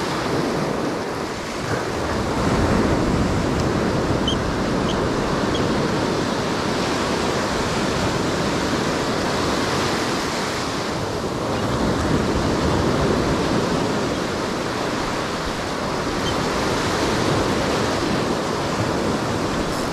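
Ocean surf washing up a sandy beach: waves breaking and foam rushing in, a steady wash that swells and eases in slow surges.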